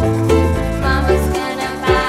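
Cheerful background music with a moving bass line under a bright melody, notes falling about twice a second.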